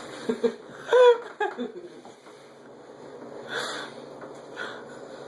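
A man belching loudly about a second in after chugging beer, then wheezy, strained breathing and gagging as he fights nausea.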